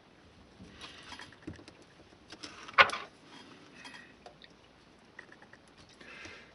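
Small clicks and rustles of fingers handling a styrene model scrap load while a glued nail is pushed into a drilled hole, with one sharp click about three seconds in.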